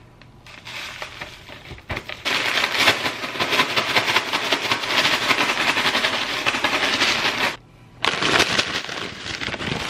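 A brown paper bag of fries being shaken hard: a rapid crackling rustle of stiff paper with the fries tossing inside. It starts about two seconds in, breaks off for a moment near the end, then starts again.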